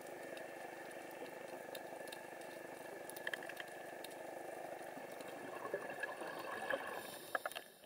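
Underwater ambience picked up by the camera: a steady watery hiss with scattered sharp clicks, more of them toward the end. It stops abruptly at the end.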